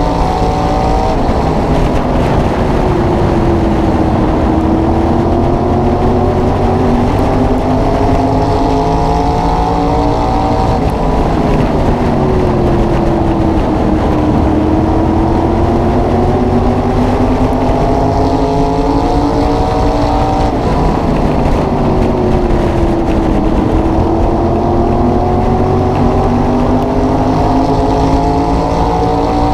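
SK Modified's V8 engine at racing speed, heard close from on the car. Its pitch climbs steadily along each straight and drops as the driver lifts into the turns, about once every ten seconds.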